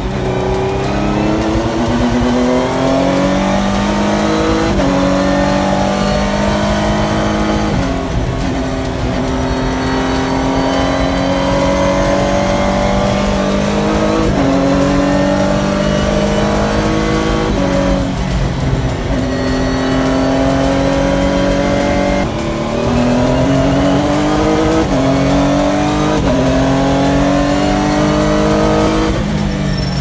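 Renault RS01 race car's twin-turbo V6 heard from inside the cockpit at speed. The engine's pitch climbs hard and drops sharply at each gearchange, over and over, as the car accelerates and brakes around the circuit.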